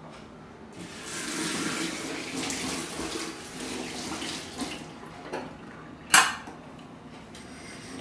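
Kitchen tap running into the sink while glasses are rinsed under it, with a few knocks of glass and dishes. The water stops about 5 s in, and a single sharp clink about 6 s in is the loudest sound.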